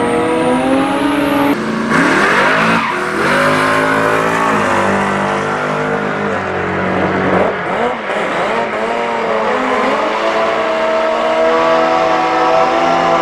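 Drag-racing sport motorcycle engines revving hard at the start line, the pitch climbing and falling again and again, with a rear tyre spinning and squealing in a burnout.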